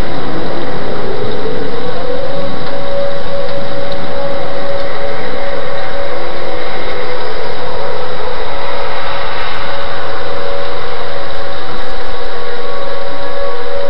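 Outdoor storm warning siren sounding a loud, steady wail. Its pitch rises over the first couple of seconds and then holds. The hiss of heavy rain and wind runs underneath.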